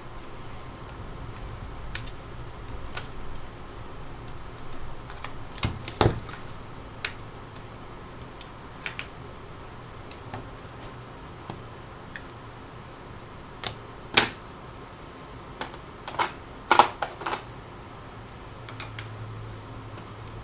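Metal spudger prying around the edge of a Samsung Galaxy phone's plastic housing, making irregular clicks and snaps as the housing's clips give. The loudest snaps come about six seconds in and in a cluster near the end.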